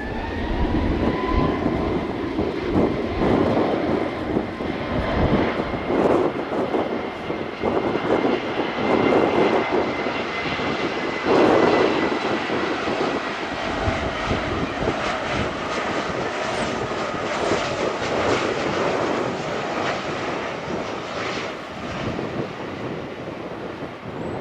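Jet airliner's engines passing close by: a steady high whine over a loud rumbling, crackling noise, fading somewhat near the end.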